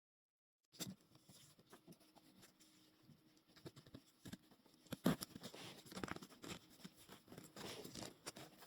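Zipper slider being run along freshly greased teeth to free a sticking zipper: faint, irregular small clicks and scratchy rasps, starting about a second in.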